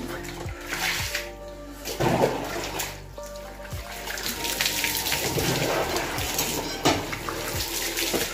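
Water poured over a person's head and body while bathing, splashing off the skin onto the floor in several pours, with a longer run of splashing in the second half. Music plays underneath.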